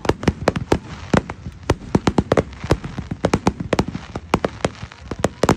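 Fireworks display: many shells bursting in rapid, irregular succession, several sharp bangs a second with no let-up.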